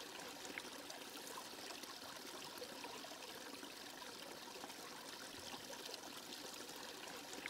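Faint, steady trickle of a shallow stream running over stones.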